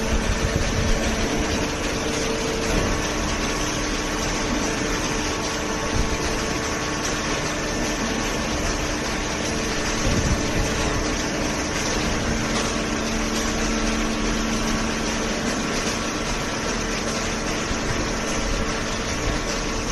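Industrial cardboard shredder and baler running: a steady loud machine din with a constant low hum and no breaks.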